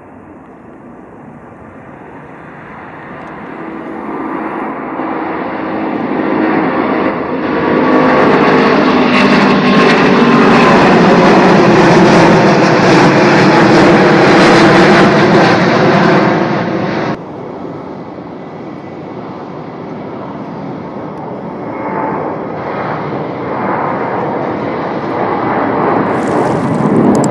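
Jet airliner passing close, its engine roar swelling to loud and holding for several seconds, then dropping off abruptly about two-thirds of the way through to a quieter, steady jet roar that builds again near the end.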